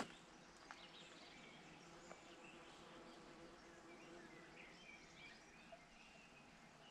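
Near silence of outdoor ambience with a few faint, scattered bird chirps; a single click right at the start.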